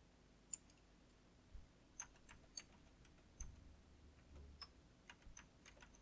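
Faint, irregular keystrokes on a computer keyboard, a few scattered clicks at a time.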